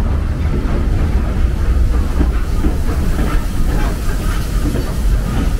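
Heritage passenger train rolling past close by along a station platform, a tank locomotive followed by its coaches. There is a steady low rumble, and the wheels clatter irregularly over the rail joints.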